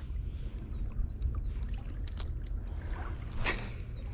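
Outdoor lakeside ambience: a steady low rumble, a string of short high chirps, and a brief rush of noise about three and a half seconds in.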